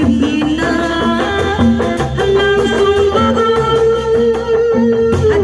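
Sundanese kuda renggong music: drums keep a steady beat under a repeating low pattern, while a melody line holds long, slightly wavering notes above it.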